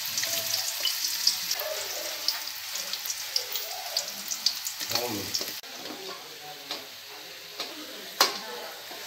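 Sliced onions frying in hot oil in a metal wok: a dense crackling sizzle that is strongest for the first five seconds or so, then settles lower. Near the end a metal ladle stirs the onions, with a sharp clank against the pan.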